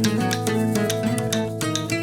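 Background music led by plucked guitar, with a steady beat of regular percussive strokes.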